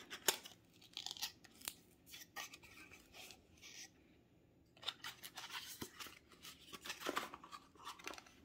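Quiet handling of a small cardboard collector box: irregular soft clicks, scrapes and rustles as its flaps are worked open and an inner box is slid out of a paper sleeve.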